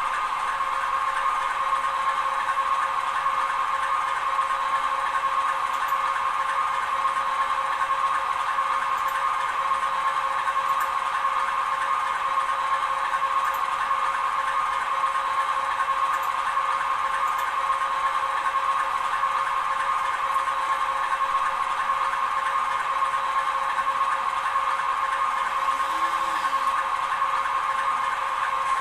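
Recorded diesel engine idling, played by a TT-scale model diesel locomotive's sound decoder: a steady drone that does not change.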